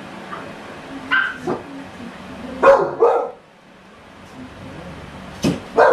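American Bully puppy barking: a few short, sharp barks, with the loudest pair near the middle and another pair near the end.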